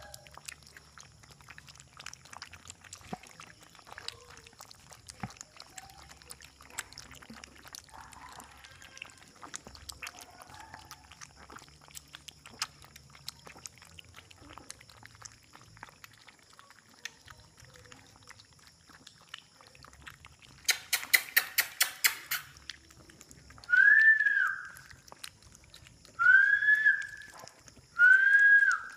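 Dachshund puppies lapping and licking a milky mash from a plastic basin: faint wet lapping clicks. About two-thirds of the way in comes a quick run of about ten sharp clicks. Near the end a puppy gives three high whines, each under a second.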